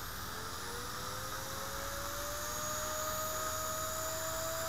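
Blade 130X micro RC helicopter's electric motor and rotors spooling up slowly on the ground. Its whine rises in pitch over the first few seconds and then holds steady. The tail rotor has just been balanced and the tailcase fitted with new bearings.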